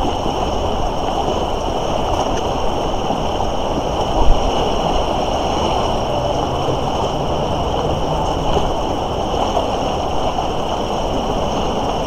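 Fast, high spring-thaw river water rushing steadily, with a brief low thump about four seconds in.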